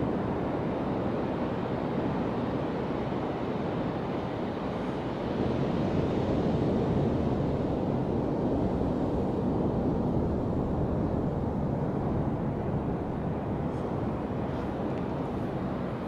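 Steady wind noise on the microphone over the wash of low surf on a sandy beach.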